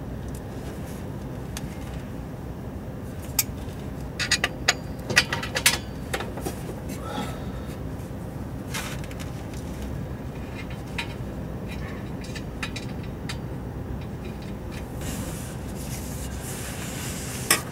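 Metal clinks and knocks of a stainless exhaust pipe and its nuts being handled and loosely fitted under a car, with a run of sharp clicks a few seconds in and one more near the end, over a steady low rumble.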